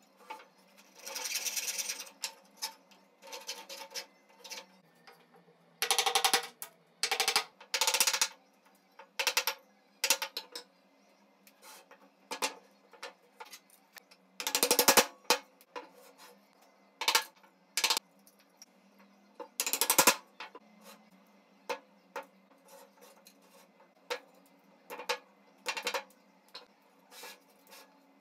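Wooden chair parts being handled, knocked together and set down on a wooden workbench while the side rails are fitted into their joints: irregular sharp wooden knocks and clacks with short pauses between them, a few of the loudest around the middle.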